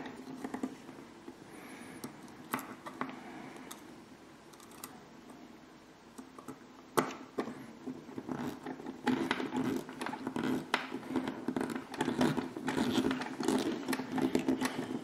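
Small clicks and scratching of a screwdriver and hands working a screw into the plastic rear suspension parts of a scale model car. The clicks are sparse at first and come thick and fast from about seven seconds in, over a faint steady hum.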